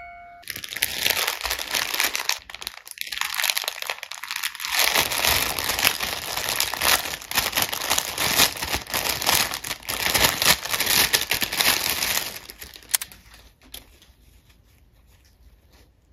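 Clear plastic bag crinkling loudly as hands unwrap felt decorations from it, for about twelve seconds, then dying down to faint rustling and handling.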